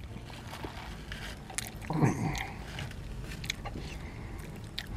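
Close mouth noises of a man chewing, with small lip-smack clicks and a short falling 'mm' hum about two seconds in, then sipping a drink through a straw.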